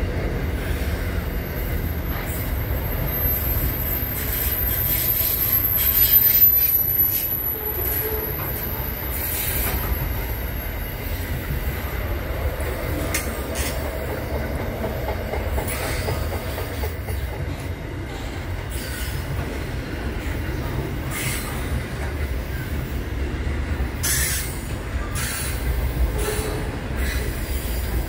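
Container freight train rolling past at speed: a steady rumble of wagons and wheels on the rails with scattered clicks. A thin, very high-pitched squeal runs through the first several seconds.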